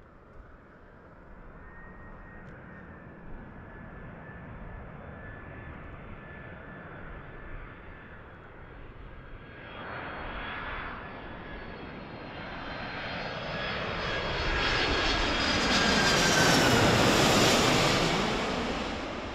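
Boeing KC-767 tanker on landing approach passing low overhead: the whine and rumble of its two turbofan engines grow steadily louder, peak about three-quarters of the way through with the whine falling in pitch as it goes over, then begin to fade.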